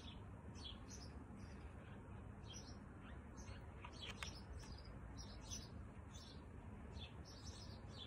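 Birds chirping faintly: many short, high chirps, two or three a second, over a low steady background rumble.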